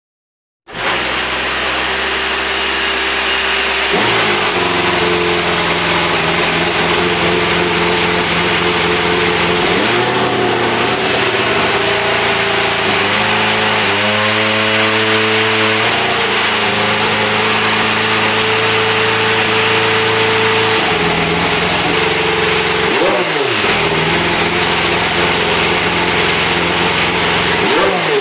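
Honda RA620H Formula 1 power unit, a 1.6-litre turbocharged V6, being fired up. It catches abruptly under a second in and settles into a steady idle. Around the middle the revs step up, hold briefly and drop back, and there are short rev blips near the end.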